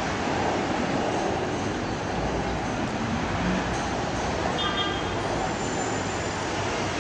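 Formation of Aermacchi MB-339 jets flying over, their engines making a steady, even jet noise.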